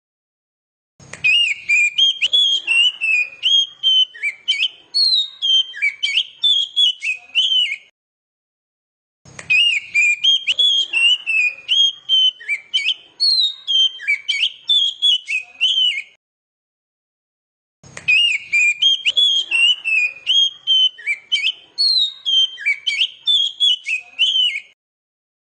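Oriental magpie-robin song: bouts of rapid, varied whistles and chirps, repeated three times with a short break of silence between each bout, as a looped training recording used to lure a young bird into answering.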